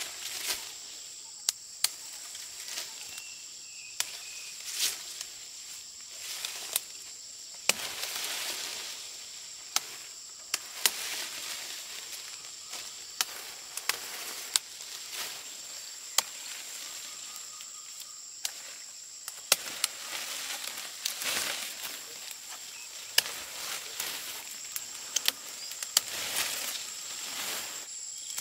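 A steady high-pitched insect drone, with rustling and scattered sharp clicks over it.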